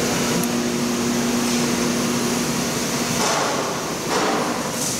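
Steady hum and hiss of workshop machinery running, with a low steady tone under it. Two short swells of louder noise come about three and four seconds in.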